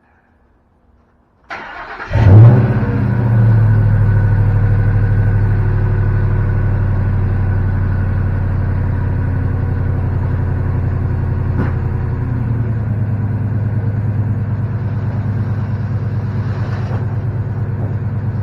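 Ford F-150 pickup's engine being started: the starter cranks briefly about a second and a half in, the engine catches with a short flare of revs, then settles into a steady idle.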